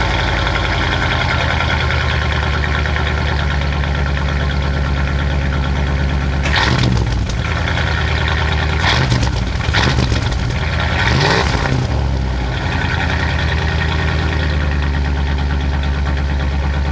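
Dodge Ram V8 running through a new Flowtech Raptor muffler just after a cold start, idling steadily. It is blipped up three times in quick succession in the middle, then settles back to idle.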